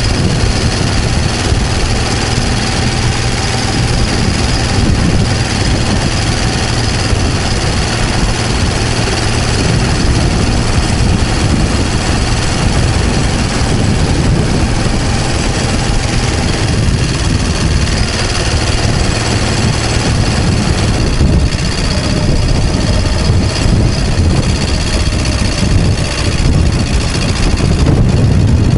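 Vintage motorcycle engine running steadily under way, mixed with loud wind rush on the microphone.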